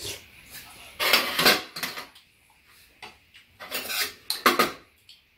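Metal spoons and chopsticks clinking and scraping against bowls of stew and rice while eating, in two quick bunches of strokes, about a second in and again near four seconds in.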